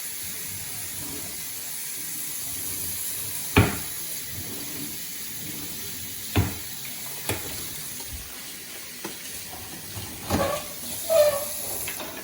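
Kitchen tap running steadily into a sink for hand washing, with a sharp knock about three and a half seconds in and a few lighter knocks and clatters later.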